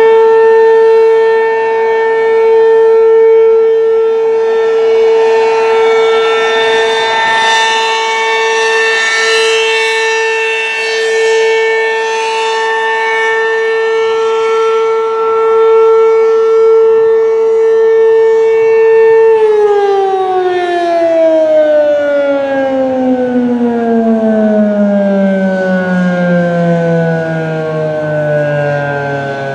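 Werden P-127 outdoor warning siren sounding a steady high tone, its loudness swelling and fading slowly. About 19 seconds in it is cut off and winds down, the pitch sliding steadily lower.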